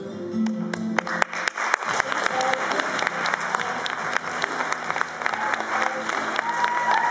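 Music stops about a second in and an audience's applause follows, many hands clapping steadily.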